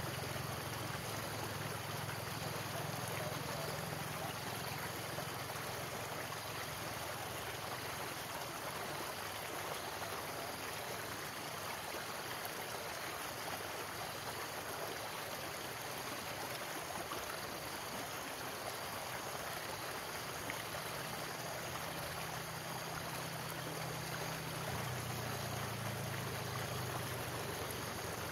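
Shallow stream rushing and splashing over rocks below a concrete culvert outlet, a steady water noise. A low hum comes in at the start and again near the end.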